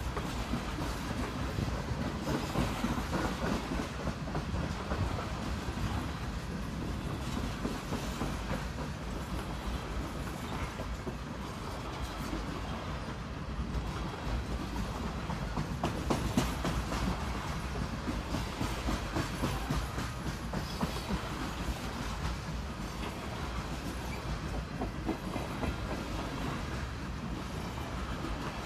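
Freight train of refrigerated juice boxcars rolling past: a steady rumble of steel wheels on rail, with scattered clicks and knocks as the wheels cross rail joints.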